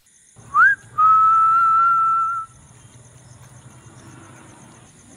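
A man whistling with his lips: a short rising note, then one long steady note held for about a second and a half.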